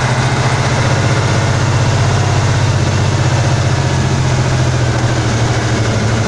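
Praga V3S truck's air-cooled six-cylinder diesel engine running steadily at low speed, heard from inside the cab as the truck creeps along.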